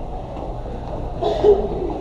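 Steady low rumble with faint, indistinct voices of people nearby, and one louder voice briefly about one and a half seconds in.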